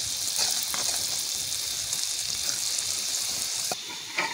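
Onion, tomato and spice masala sizzling in hot ghee in a karahi while a steel ladle stirs it, with a few scrapes of the ladle. The sizzle cuts off suddenly near the end, followed by one brief knock.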